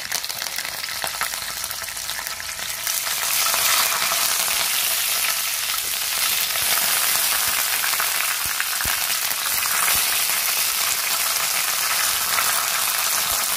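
Fresh curry leaves, bay leaves, mustard and cumin seeds sizzling in hot oil in a nonstick pan, stirred with a silicone spatula: a tempering (tadka) frying. The sizzle grows louder about three seconds in.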